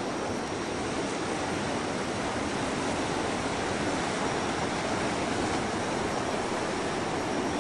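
Ocean surf: a steady, even rush of waves with no break.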